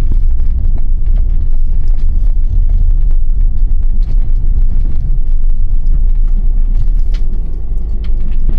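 Camper van driving on the road, heard from inside the cab: a steady low rumble of engine and tyres, with scattered small clicks.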